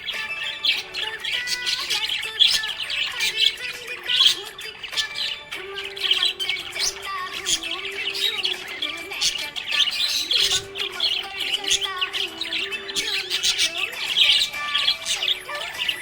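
Budgerigars chirping and warbling continuously: a dense stream of rapid, high chirps and squawks with no pause.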